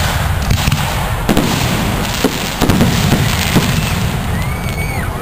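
Aerial fireworks display: a run of sharp bangs and pops from bursting shells, thickest between about one and three and a half seconds in, over a low rumble of ambient noise.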